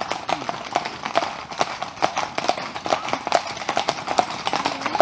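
Hooves of several Icelandic horses clip-clopping on wet asphalt, many hoofbeats overlapping in an irregular patter.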